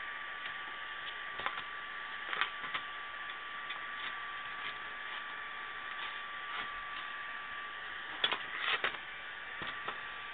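Light clicks and rustles of a clear plastic CD jewel case and paper photo booklet being handled, loudest in a short cluster near the end. Under them runs a steady hiss with a thin constant whine.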